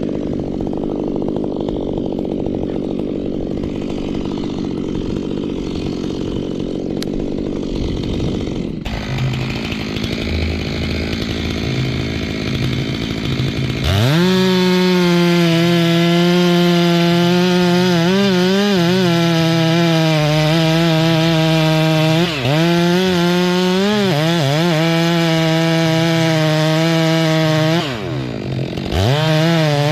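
Chainsaw idling roughly, then revved to full throttle about fourteen seconds in and held there while cutting through tree wood, its pitch sagging and recovering as the chain bites. Near the end it drops back to idle for a moment and then revs up again.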